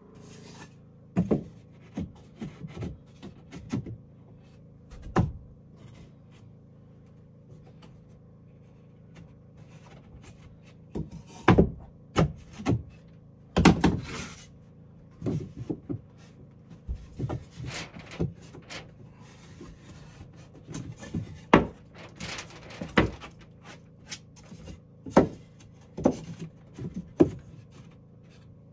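Irregular wooden knocks, thumps and scrapes of timber being handled, each knock short and sharp, with a few louder thumps near the middle and again later on.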